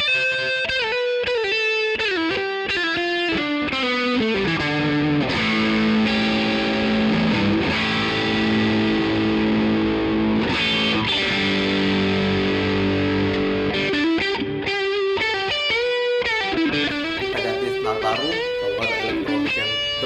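Epiphone LP100 electric guitar with two humbuckers, played through a Hughes & Kettner amp: melodic lead lines with string bends, held chords for several seconds in the middle, then lead lines again near the end.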